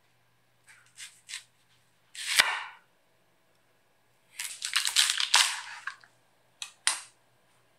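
Chef's knife chopping vegetables on a bamboo cutting board. There are a few light knocks about a second in, then one loud chop a little after two seconds, a quick run of chops around the middle, and two more chops near the end.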